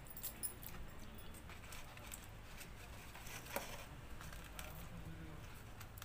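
Faint scattered clicks and soft wet sounds of a hand mixing pakhala (rice soaked in water) in a steel bowl and picking food off a steel plate, with one louder click about three and a half seconds in. A low steady hum runs underneath.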